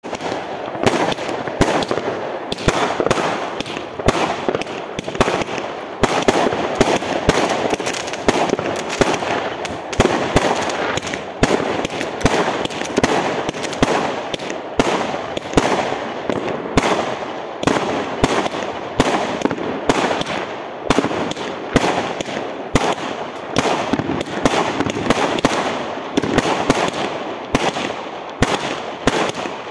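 Aerial fireworks going off in quick succession: a steady run of sharp bangs and cracks over continuous crackling, with rising shells bursting overhead.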